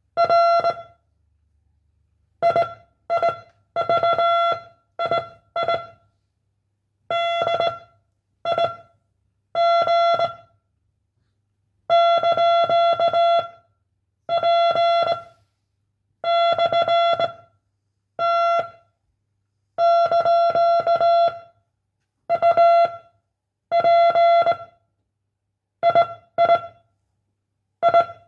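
Morse code sent as a single mid-pitched beep, keyed slowly in short dits and long dahs grouped into characters with pauses between them: a code-reception test for candidates to copy down.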